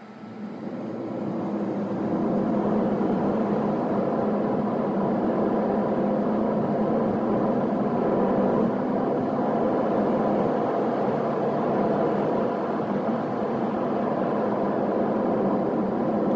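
Car driving, engine and tyre noise heard from inside the cabin, growing louder over the first two seconds and then holding steady.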